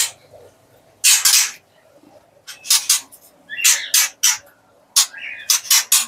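White-rumped shamas giving harsh, squawking calls in a series of short bursts, with one longer call about a second in and a quick run of calls near the end.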